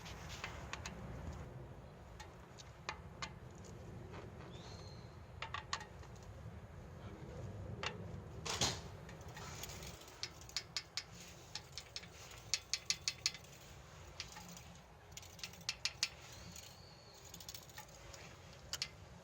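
Scattered sharp metallic clicks and clinks, some in quick runs of several a second, like hand tools and small metal parts being handled. A bird chirps a couple of times.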